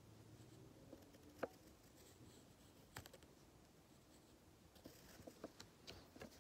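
Near silence with faint, scattered taps and light scratches of a pencil on sketch-pad paper, the sharpest tick about a second and a half in and a small cluster near the end.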